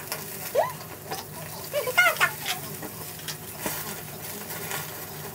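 Pork belly sizzling on a grill, a steady hiss, with a few light clicks of utensils and a couple of short vocal sounds.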